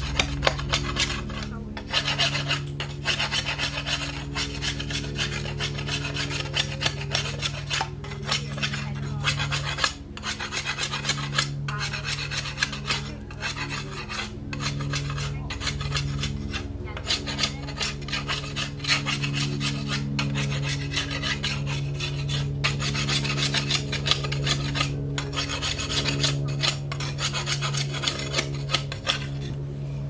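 A hand file or rasp worked back and forth in quick, even, continuous strokes, shaping a crossbow part.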